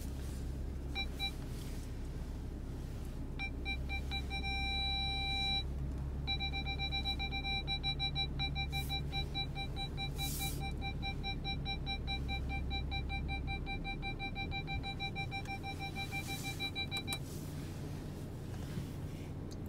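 Audi A5 parking sensors beeping inside the cabin as the car closes on the walls of a car elevator. A short run of beeps turns into a solid tone for about a second when closest, then comes a steady run of rapid beeps, about four a second, that stops near the end. A low steady hum runs underneath.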